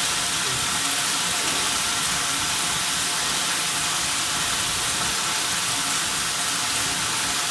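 Marinated steak sizzling steadily in a hot pan, an even hiss of frying.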